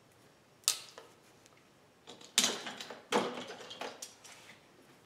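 Clicks and scrapes of hand-handled hardware at an electrical panel: wire, a stripping tool and plastic breaker parts. One sharp click about a second in, then a run of several clicks and scraping from about two to four seconds in.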